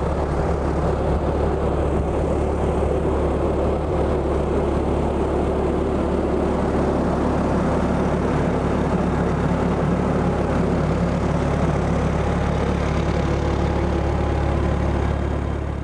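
Fendt tractor's diesel engine and a Grimme potato harvester running steadily in the field, a constant low drone that fades out at the very end.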